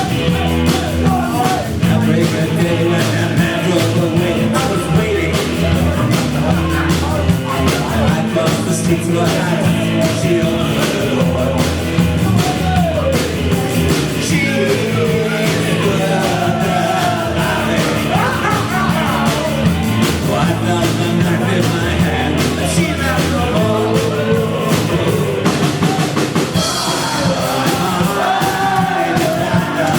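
Live rock band playing loudly: a drum kit keeping a steady beat under the band, with a singer whose voice slides up and down through much of the song.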